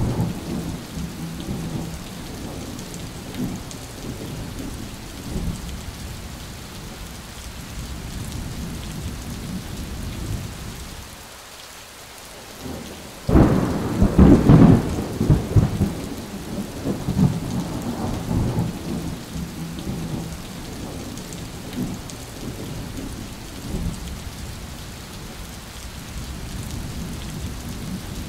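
Steady rain falling with thunder rumbling low throughout. About halfway through, a sudden loud thunderclap rolls on for a few seconds, with further rumbles after it.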